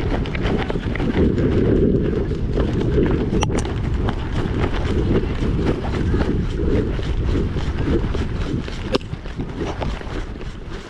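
Loud low rumble of wind buffeting the microphone, with scattered clicks through it.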